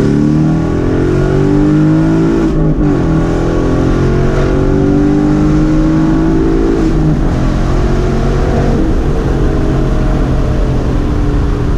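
A Ford Mustang GT's 5.0 V8 with an X-pipe and no mufflers or resonators at wide-open throttle from about 40 mph in second gear, heard from inside the cabin. The engine note climbs, drops sharply at an upshift about two and a half seconds in, and climbs again. Near seven seconds the throttle comes off and the engine runs steadily.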